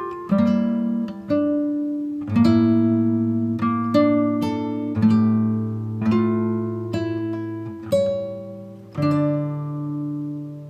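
Background music: an acoustic guitar playing plucked notes and chords, each starting sharply and fading away, about one a second.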